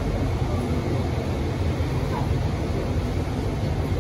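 Steady low rumble of a Bombardier Innovia APM 100 rubber-tyred people mover running along its concrete guideway, heard from inside the car.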